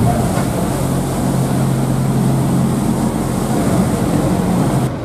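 Off-road race buggy's engine running steadily: a low hum under a broad rushing noise, whose high part drops away just before the end.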